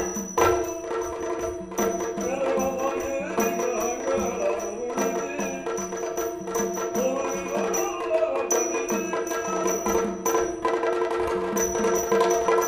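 Yakshagana accompaniment music: quick, dense drum strokes over a steady drone, with a wavering melodic line on top.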